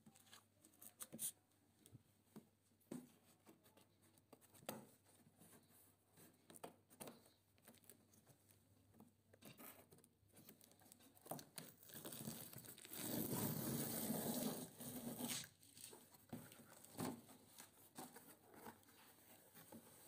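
Cardboard box being opened: scissors cutting through packing tape, with scattered light clicks and taps of handling. A little past the middle comes about three seconds of tearing as the tape and flaps are pulled open.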